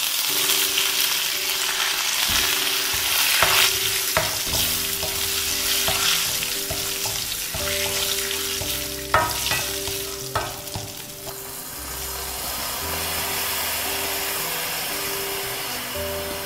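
Curry leaves, dried red chillies and mustard seeds spluttering and sizzling in hot coconut oil as a tempering, stirred with a spoon, with a few sharp knocks of the spoon against the pan about nine and ten seconds in. The sizzle eases off in the later part.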